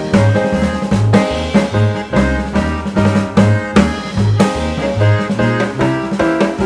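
Background music with a steady drum-kit beat: kick drum, snare and a melodic instrument.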